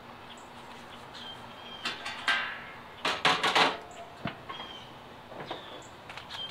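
Metal clanks and knocks from the steel lid of a Char-Griller Gravity 980 charcoal smoker as it is grabbed by its handle and swung open. The knocks are sharp and irregular, most of them coming together about three seconds in.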